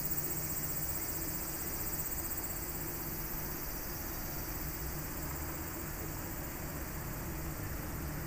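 Steady, high-pitched buzzing of cicadas, with a low steady hum underneath.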